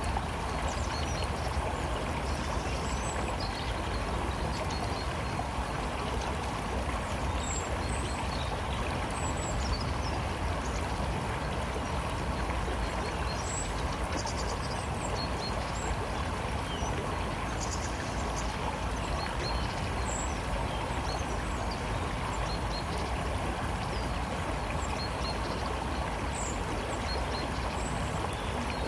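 A river running steadily, an even rushing of water, with faint high bird chirps scattered over it.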